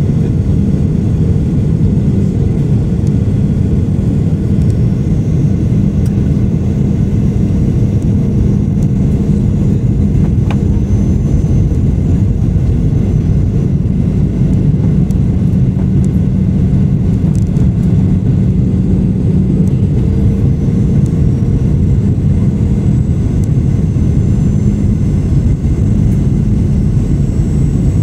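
Steady cabin roar of a Boeing 737-800 on approach, heard from a window seat beside the wing: its CFM56-7B turbofan engines and the airflow, with a low steady hum under the roar.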